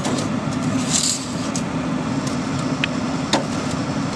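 Foil pans being set down on a pellet grill's metal grates: a few light clinks and a brief rustle of foil about a second in, over a steady low rumble.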